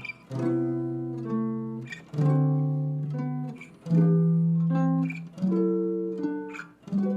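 Guitar playing three-note chord voicings on the low strings, five chords struck about every one and a half to two seconds and left ringing. Partway through each chord one inner note steps down, moving it from a major or minor 7th chord to a 6th chord.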